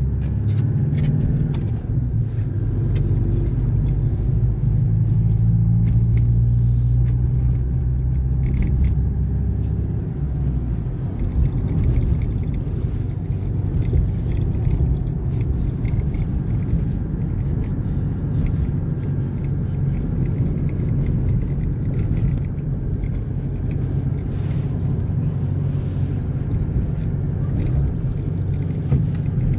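Car cabin sound while driving: a steady low engine hum and road rumble. About ten seconds in, the steady engine note drops away and plainer low road rumble carries on.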